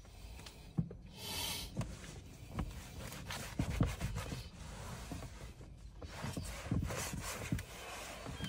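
Microfibre cloth rubbed briskly over a car's textured plastic glovebox lid, wiping interior detailer dressing across the panel: a run of irregular scratchy wiping strokes, a few louder than the rest.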